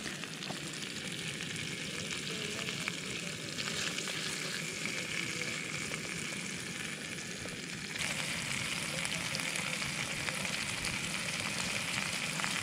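Walleye fillets sizzling steadily as they fry in melted butter in a hot pan on a small camp stove, a little louder from about eight seconds in.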